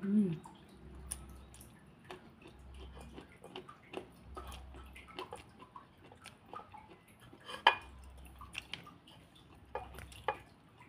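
Close-up eating sounds: wet chewing and lip-smacking, a scatter of sharp clicks with one louder click about three-quarters of the way through. A brief low hum at the very start.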